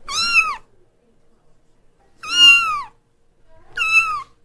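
Domestic cat meowing three times: high-pitched half-second meows, each falling in pitch at its end, at the start, about two seconds in, and near the end.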